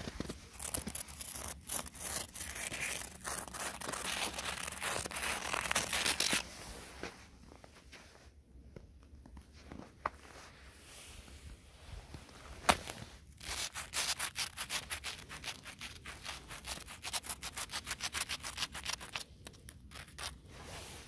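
Footsteps crunching through snow. Dense crunching for the first six seconds or so, then quieter, with one sharp click about thirteen seconds in, followed by a run of quick, evenly spaced crunches.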